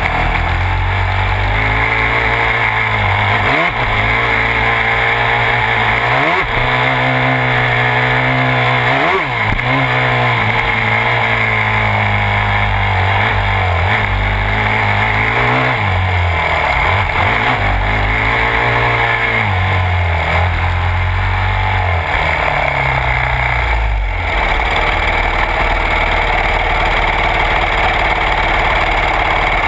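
Yamaha YZ250F's single-cylinder four-stroke engine, heard up close from a camera mounted on the bike, revving up and falling back again and again as it is ridden along a dirt trail. About 24 seconds in it settles to a steady idle.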